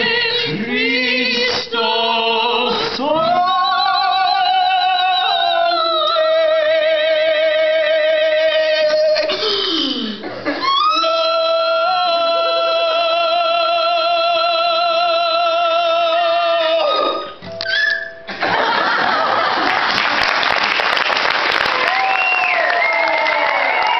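A man and a woman singing operatically, holding long notes with wide vibrato in two phrases. From about three-quarters of the way in, the audience applauds and cheers, with whoops.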